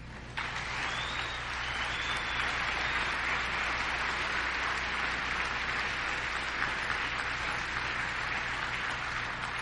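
Audience applauding, starting abruptly about half a second in, holding steady, and easing off near the end.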